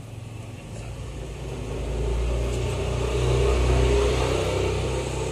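Low rumble of a motor vehicle's engine, growing louder over the first two seconds and then holding steady.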